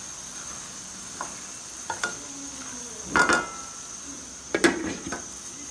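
Spatula scraping and knocking against a wok while stirring a thick spinach-and-chickpea curry, over a steady sizzle from the pan. A few light ticks come early, with the loudest clatters about three seconds in and again a little before five seconds.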